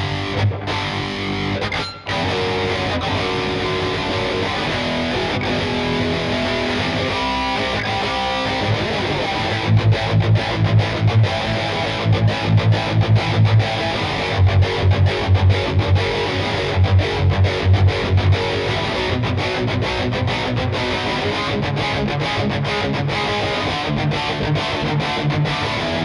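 Schecter C1 Elite electric guitar played through a distorted tone, riffing continuously. A run of loud, choppy low chugging notes comes from about ten to eighteen seconds in, with a brief dropout about two seconds in.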